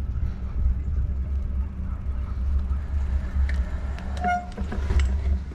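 A short, single horn toot about four seconds in, over a steady low rumble.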